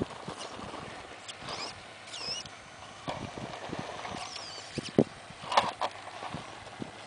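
Axial AX10 shaft-drive RC rock crawler clambering over rock: irregular knocks, clicks and scrapes of its tyres and chassis on stone, the loudest knocks about five seconds in.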